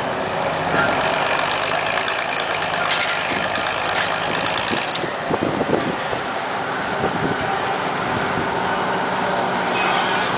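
Vintage Bay City crawler crane's engine running steadily as it hoists a loaded clamshell bucket, with occasional knocks and clanks from the rig.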